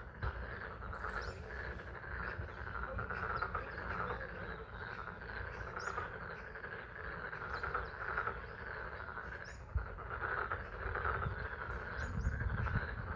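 A chorus of many frogs calling continuously from a pond, a dense pulsing trill, with a few short bird chirps above it. A low rumble swells near the end.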